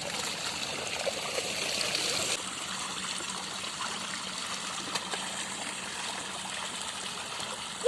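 Water trickling and running steadily, like a small stream flowing over a shallow spot. The hiss of the water drops a little about two seconds in.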